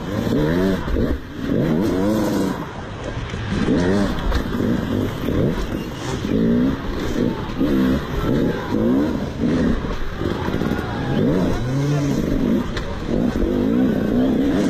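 Motocross bike engine revving hard, its pitch climbing and falling back over and over as the rider works the throttle.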